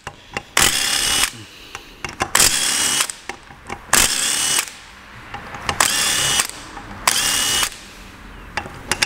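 Makita cordless impact wrench undoing the camshaft bearing-cap bolts, in five short bursts of under a second each, its motor whine rising as each burst spins up.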